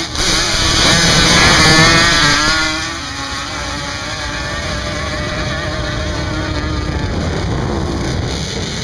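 Sport quad ATV engine revving hard as the quad launches off the line and accelerates up a sand hill. The engine is loudest in the first three seconds, then drops to a steadier, quieter note as the quad climbs away.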